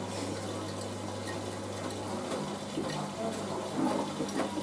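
Front-loading washing machine with water running into it, over a steady low hum. The hum stops a little over two seconds in, and a different, higher hum takes over.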